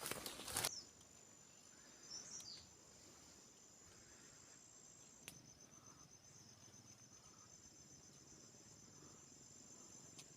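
Insects trilling steadily, a faint, high, evenly pulsed buzz. Brief rustling at the very start, and a short chirp about two seconds in.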